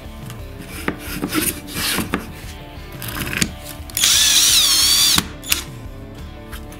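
A drill-driver drives a wood screw into a pine block on a plywood base. Its motor whines loudly for about a second, starting about four seconds in, with the pitch wavering as the screw bites and seats. Before that come a few light clicks and knocks of handling the screw and bit.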